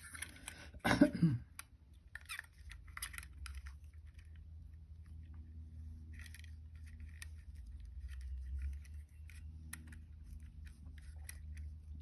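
16-gauge copper wire being wrapped around the steel barrels of wrap-and-tap stepped mandrel pliers: faint, scattered small clicks and scrapes of wire against metal and fingers, over a steady low hum.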